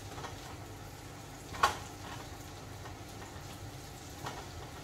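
Sliced onions sizzling quietly in a frying pan as a spatula stirs them, with one sharp clack of the spatula against the pan about a second and a half in and a couple of lighter taps.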